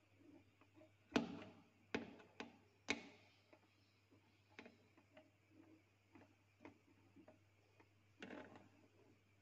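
Quiet room with a low steady hum and scattered small clicks and taps. Four sharper clicks come between about one and three seconds in, fainter ones follow, and there is a soft rustle near the end.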